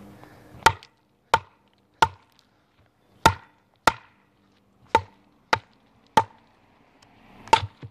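Batoning: a wooden stick knocks about nine times on the spine of a TOPS El Chete, a quarter-inch-thick 1095 high-carbon steel blade, driving it down through the middle of an upright log. The knocks are sharp and separate, coming unevenly at about one every half second to second.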